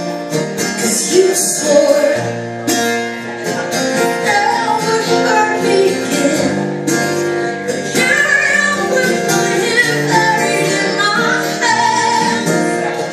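Live acoustic music: two acoustic guitars strummed and picked while a woman sings a melody into a microphone.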